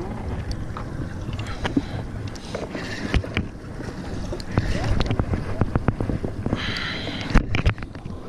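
Wind rumbling on the microphone over water moving against a boat's hull, with scattered sharp clicks and knocks and a brief hiss about seven seconds in.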